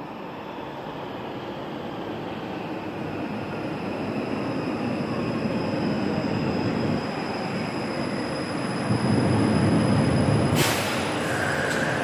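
Stuttgart Stadtbahn light-rail train approaching, its running noise growing steadily louder, with a thin, steady, high wheel squeal. Near the end comes a sudden short hiss, followed by a brief higher tone.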